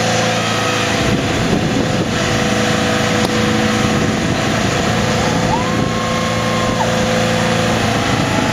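A 1990s Ford crew-cab pickup doing a burnout: the engine is held at steady high revs while the spinning rear tyres squeal. A higher squeal comes in for about a second just past the middle.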